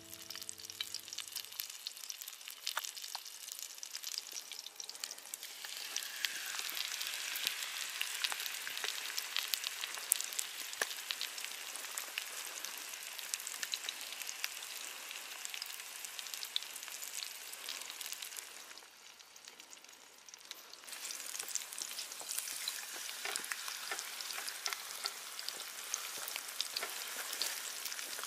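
Batter-coated napa cabbage leaves frying in hot oil in a pan: a steady sizzle full of fine crackles. It grows louder a few seconds in, drops away briefly past the middle, then picks up again.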